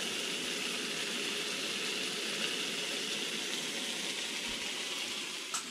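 Raw bacon strips sizzling steadily as they start to fry in a small pan on a portable gas-canister camping stove, with a short click near the end.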